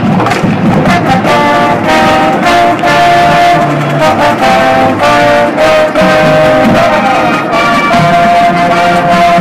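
High school marching band playing: brass (trumpets and trombones) sounding held chords with drumline hits underneath.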